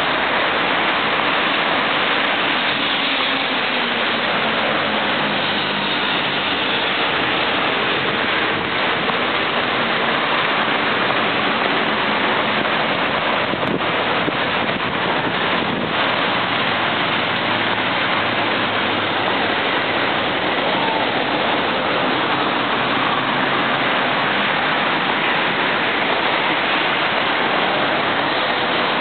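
Steady, even noise of dense traffic on a multi-lane urban expressway, the sound of passing cars and their tyres blending into one continuous wash.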